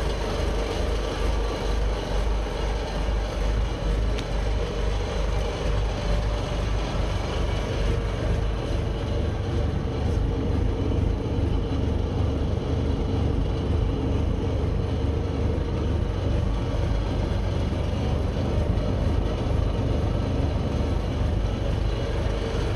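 Renault 85-150 4x4 fire truck's diesel engine idling steadily.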